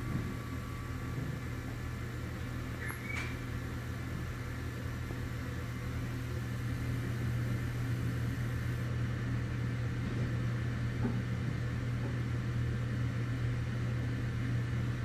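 Steady low machine hum, like a motor or fan running in a small workshop, with a couple of faint small clicks from carburetor float parts being handled.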